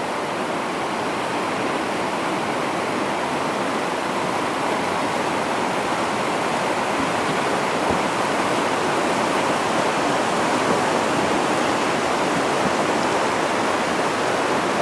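River rapids rushing steadily, a continuous even noise of churning whitewater.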